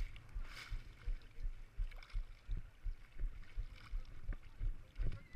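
Ocean water sloshing and slapping against a board-mounted camera at the water's surface, with low thumps about three times a second and a short splash about half a second in.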